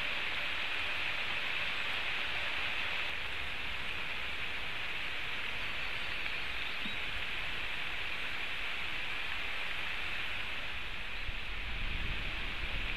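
Heavy rain falling steadily, an even hiss, with a low rumble coming in near the end.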